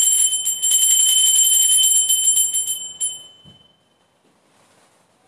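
Altar bells shaken in a rapid jingling ring that stops about three seconds in, with one brief shake after, then dies away: the bells rung at the elevation of the chalice at the consecration of the Mass.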